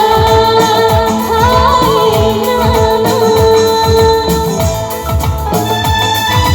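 Live Bollywood-style song played loud through a PA system: a long held melody note, likely sung, over keyboard and a steady drum beat whose low hits drop in pitch. The held note ends about four seconds in and the band carries on.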